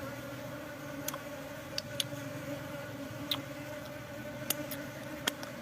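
Honeybees buzzing in a steady hum close by, with a number of sharp clicks scattered through it.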